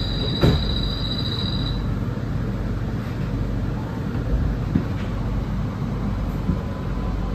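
Macau Light Rapid Transit train, a rubber-tyred automated people mover, running along its elevated guideway, heard from inside the car as a steady low rumble. A high steady whine stops about two seconds in, and there is one sharp knock just under half a second in.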